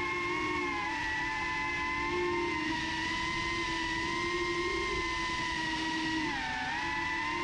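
Brushless motors of a small FPV quadcopter giving a steady, several-toned whine, the motors' pitches close together and moving as one, dipping briefly in pitch near the end as the throttle eases, then climbing back.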